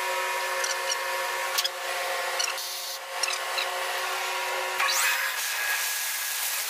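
Air compressor running with a steady hum and hiss of air, and a few light knocks and clicks.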